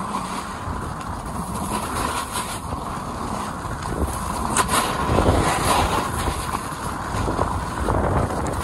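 Wind buffeting the microphone on a descent through powder snow, over a steady hiss of sliding on snow, a little louder about halfway through.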